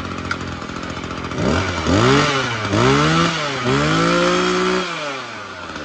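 Echo SRE2320 brush cutter's small two-stroke engine idling, then revved three times, the last rev held about a second before dropping back to idle. It runs hard and lively for its size.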